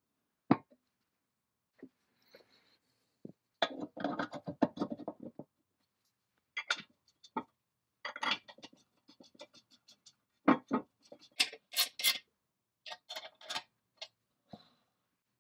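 Small metal parts being handled on a painted cast-iron casting: hex bolts and the bracket clicking, knocking and scraping as they are set in place by hand. The sound comes as single sharp knocks and several short runs of rapid ticking, with quiet gaps between.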